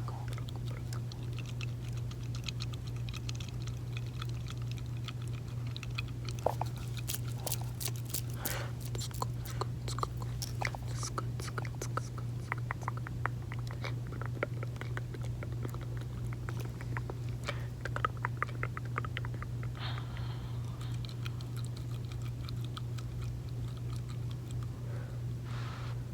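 Close-miked gum chewing and wet mouth sounds: irregular smacks and sticky clicks, at times several in quick succession, over a steady low hum.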